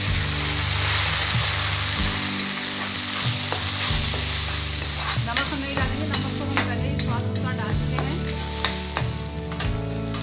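Chopped mustard greens sizzling as they drop into hot oil in a kadhai, then frying while a steel ladle stirs them. The ladle clicks and scrapes against the pan, more often from about halfway through.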